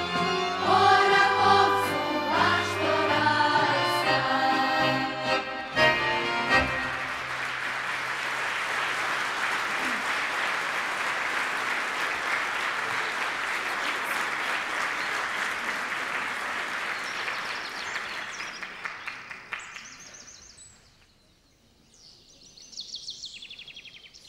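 A large choir sings the last held notes of a song, stopping about six seconds in. An audience then applauds for about twelve seconds, and the clapping fades out.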